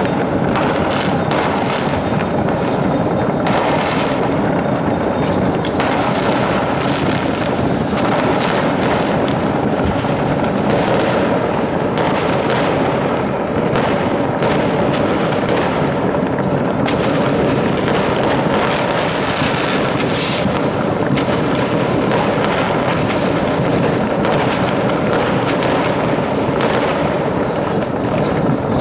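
Fireworks: a continuous barrage of overlapping bangs and crackling from many rockets and firecrackers going off at once, with no pauses.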